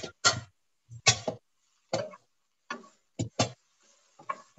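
Wooden spoon knocking and scraping against a frying pan while stirring vegetables: a series of short, uneven knocks, a little over one a second.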